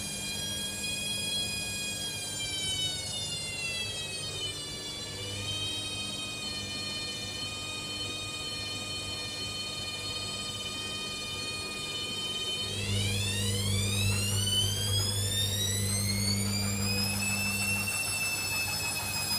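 Hoover Dynamic Next washing machine squealing: a high-pitched whine that slides down in pitch about four seconds in, holds steady, then climbs again from about two-thirds of the way through as a low hum comes in. The owner is unsure whether this squeal is normal.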